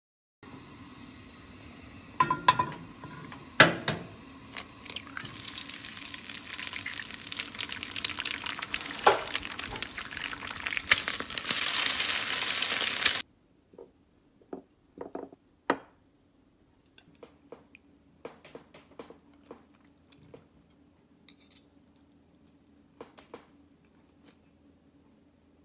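An egg frying in oil in a frying pan: a steady sizzle that grows louder, with a spatula knocking and scraping against the pan. The sizzle cuts off about 13 seconds in, and scattered light clinks of tableware follow.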